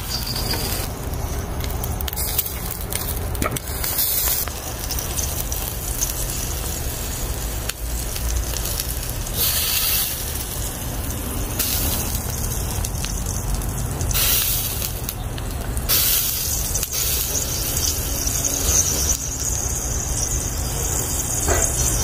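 Balut eggs topped with chili garlic oil sizzling and crackling on a charcoal grill. Sharper bursts of hissing come every few seconds over a steady low rumble.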